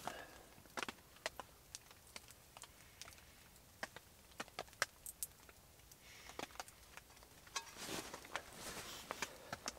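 Spruce-wood fire crackling faintly, with scattered sharp pops at irregular intervals and a stretch of steadier hiss in the second half.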